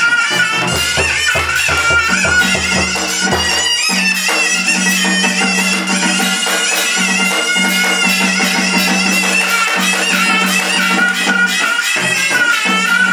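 Hát bội theatre ensemble music: a shrill double-reed horn (kèn) plays a wavering melody over rapid drumbeats and a sustained low note.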